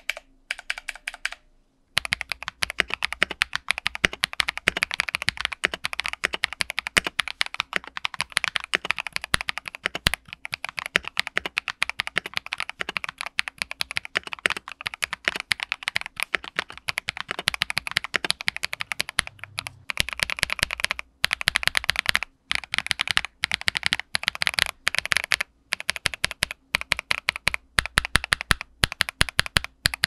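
Fast, continuous typing on a VortexSeries GT6 65% mechanical keyboard modded with a polycarbonate plate, softer gaskets, KTT Strawberry linear switches and AKKO ASA keycaps: a dense run of keystroke clacks, broken by a few brief pauses.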